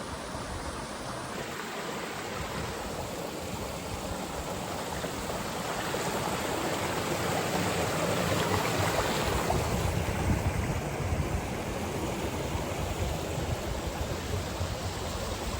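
Steady rush of a rocky mountain stream and its small waterfalls, swelling a little louder around the middle.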